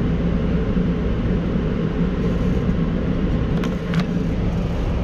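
Semi-truck diesel engine idling steadily, a low rumble heard from inside the cab.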